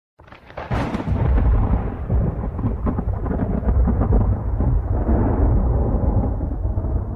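Fireworks going off in a dense barrage, continuous booming and crackling that starts suddenly, with a sharp crackling burst about a second in.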